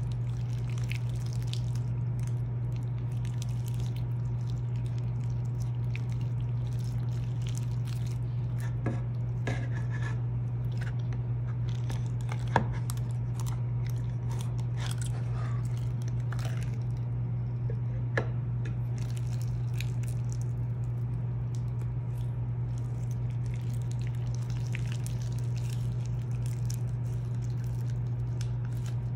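Slime being stretched, folded and squeezed by hand, giving scattered small wet clicks and squelches, with two sharper clicks standing out near the middle. A steady low hum runs underneath throughout.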